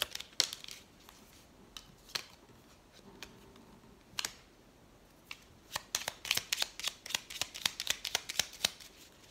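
A deck of oracle cards shuffled by hand: crisp card snaps and flicks, a few spaced ones at first, then a quick run of them from about six seconds in until near the end. A single snap a little after four seconds as a card is laid down on the table.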